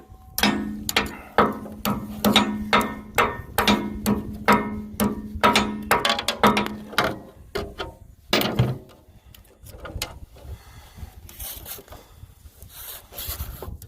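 Hammer blows on the steel of a rotary mower's blade assembly, about two to three strikes a second, each with a metallic ring, driving a part back up; the run stops about seven seconds in, followed by one more hard blow and a few lighter clinks.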